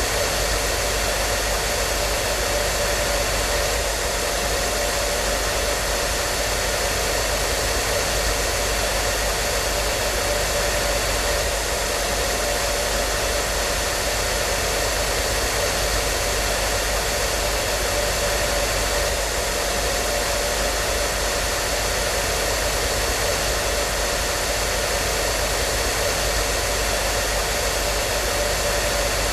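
Hair dryer running steadily: an even rushing of air with a faint steady motor whine, with no change in speed or level.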